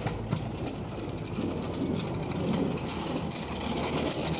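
A child's small bicycle with training wheels rolling and rattling over concrete, growing louder as it comes closer.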